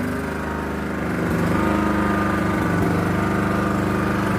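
WENS 3600-watt inverter generator running steadily, not that loud; it gets slightly louder about a second in.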